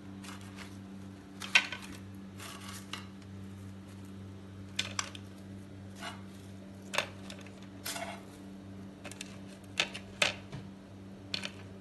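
Fried bread samosas being moved onto a serving plate: about a dozen light clinks and taps of utensil and plate, scattered and irregular, over a steady low hum.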